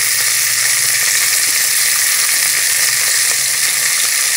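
Raw chopped onions and green chillies sizzling steadily in hot oil in a pressure cooker's base, just added and starting to fry.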